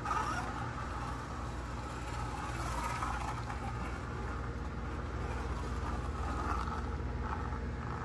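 Eldon 1:24-scale slot car running laps on plastic track: its small electric motor whirring and its pickup rubbing in the slot, swelling and fading as it comes by, over a steady low hum.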